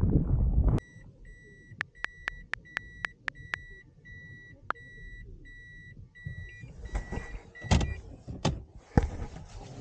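A car's in-cabin warning beeper sounding a steady string of short high beeps, about two and a half a second, typical of a car put in reverse. Early in the string comes a quick run of sharp clicks.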